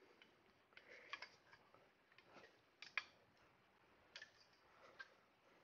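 Faint, scattered clicks and light knocks of a folding cot's metal tube leg frame being handled and fitted together, a few at a time about a second apart.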